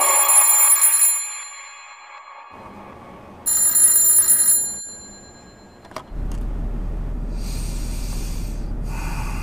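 Telephone bell ringing twice, about a second each, a couple of seconds apart. About six seconds in there is a sharp click, then a steady low hum and hiss.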